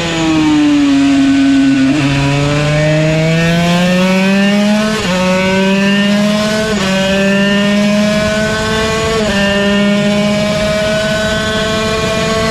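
Yamaha TZ125 125 cc two-stroke single-cylinder race engine at speed: its note falls for the first two seconds as the bike slows, then climbs steadily through the gears, with three upshifts, each a sudden drop in pitch, about five, seven and nine seconds in.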